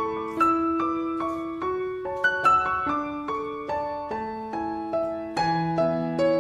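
Background piano music: a slow, gentle melody over held chords, each note struck and left to fade.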